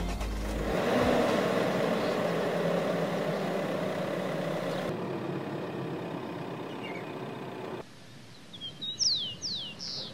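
Mercedes-Benz X-Class pickup running, a steady engine and driving noise that cuts down sharply about eight seconds in. Near the end come a few short, high, falling chirps.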